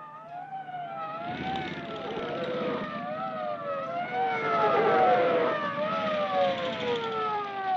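Police siren sound effect wailing up and down over a low vehicle rumble, winding down near the end as the police car arrives.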